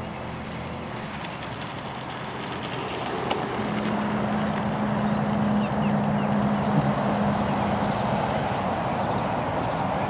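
Electric ducted fan of a Freewing F-5 model jet running as it taxis: a steady rushing hiss that grows louder about four seconds in, with a thin high whine.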